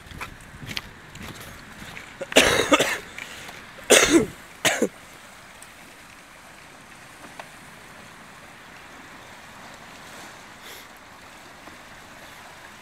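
Shallow river water rushing steadily around a dirt bike being pushed through it by hand, engine off. Three loud, short, noisy bursts come between about two and a half and five seconds in.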